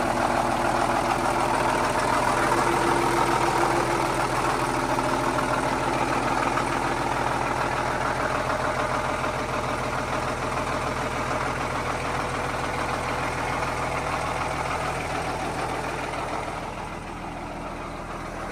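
Vintage Caterpillar D13000 six-cylinder diesel, the 1940s D8 bulldozer engine, running steadily at idle after a cold start. It grows gradually quieter and dips briefly near the end.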